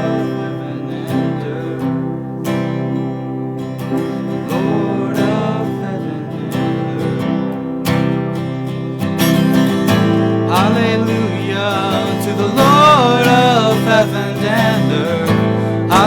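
Music led by acoustic guitar, with a fuller, louder section coming in a little past halfway and a melody line with vibrato over it.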